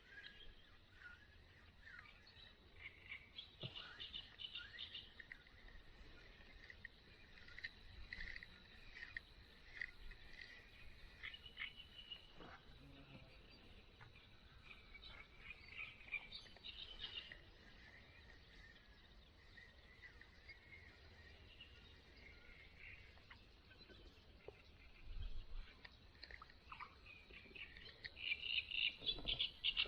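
Faint birds chirping and calling on and off, short scattered chirps, a little louder near the end.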